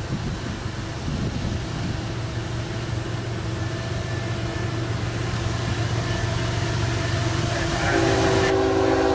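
Diesel freight locomotive approaching, its engine rumble growing slowly louder, then its air horn starts blowing a steady chord near the end.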